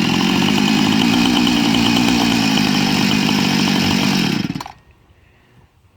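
Small gas chainsaw running steadily at full throttle, ripping lengthwise through a log in a homemade Alaskan mill with a crosscut rather than a ripping chain. It cuts off abruptly about four and a half seconds in.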